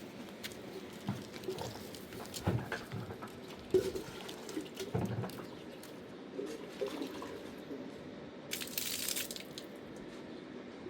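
Water splashing and dripping, with scattered small knocks and clicks and a brief hiss about eight and a half seconds in.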